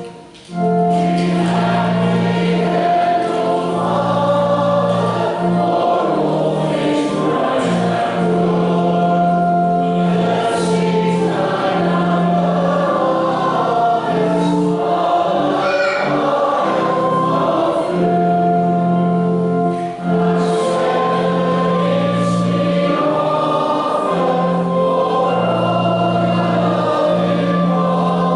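A choir singing a Christian song over instrumental accompaniment with long-held bass notes. There is a brief drop in level just after it begins.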